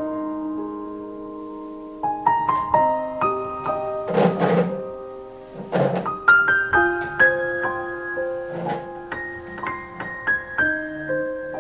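Piano music, a slow run of single notes and chords. Two short hissing bursts break in about four and six seconds in.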